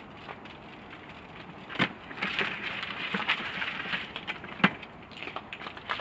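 Ice cubes crunching and clattering as they are handled in and around the coolers, with scattered crackle and sharp knocks; the loudest knock comes near the end.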